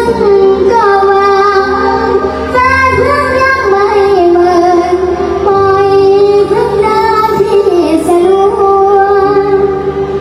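A child singing a sustained melody with long held, wavering notes over backing music.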